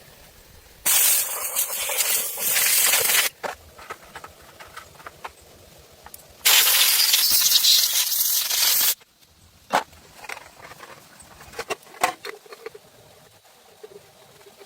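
Two long bursts of loud hissing, each about two and a half seconds, with light scattered clicks and knocks between and after them.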